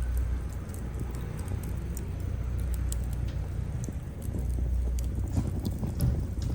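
Wood fire burning, with irregular sharp crackles and pops from the burning logs over a steady low rumble of the flames; the crackles grow busier near the end.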